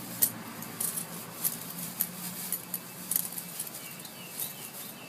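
Light, irregular metallic clicks and jingles, several a second, as two small dogs move around in new dog boots, over a faint steady hum.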